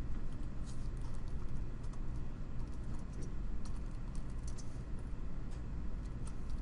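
Computer keyboard typing: irregular runs of quick keystrokes over a steady low hum.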